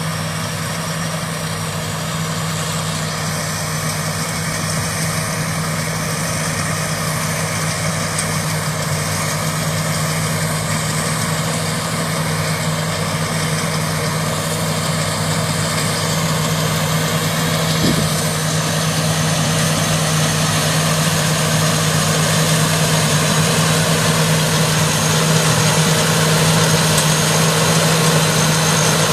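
Engine of a Thai Charoen Karnchang rice combine harvester running steadily, a continuous hum that grows gradually louder.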